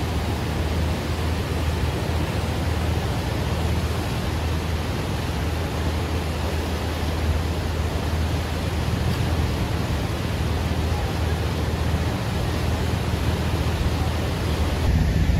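Fast-moving floodwater rushing steadily: an even, dense rushing noise, heaviest in the low end.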